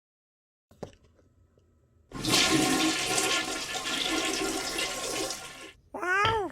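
A single click, then a loud rushing, water-like noise for about three and a half seconds that cuts off abruptly, followed near the end by a short swooping pitched sound.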